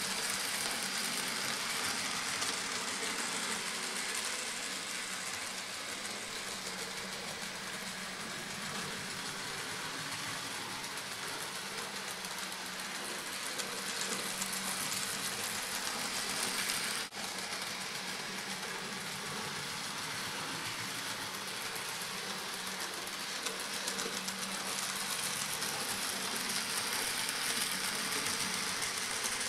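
N gauge model trains running on the layout, including a Dapol Class 52 Western diesel being run in: a steady whirr of small electric motors with the rattle of wheels on the track. The sound breaks off for an instant a little past halfway.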